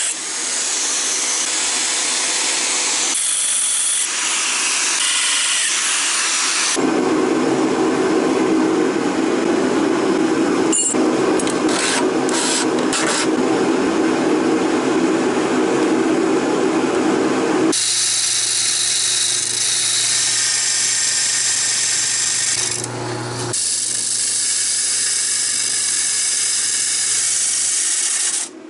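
Electric drill spinning an abrasive cut-off disc, grinding through thin galvanized sheet steel. The noise is loud and continuous, with several abrupt changes, and in the latter part a steady low hum runs under it.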